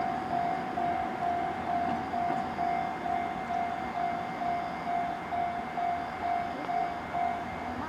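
Railway level-crossing warning bell ringing in a steady repeated ding a little under twice a second, stopping near the end, over the low running noise of a slowly approaching electric locomotive.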